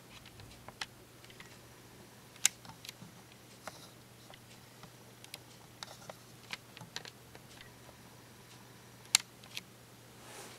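Scattered, irregular light clicks and ticks over a faint steady low hum, with two sharper clicks, one about two and a half seconds in and one near the end.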